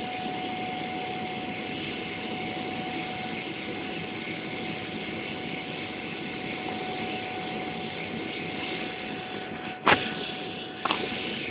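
Boeing 777-300ER cabin noise in the climb after take-off, heard at a window seat beside the GE90-115B engine: a steady rush of engine and airflow with a thin, steady whine above it. Near the end there are two sharp knocks about a second apart, the first the loudest, as the camera is handled.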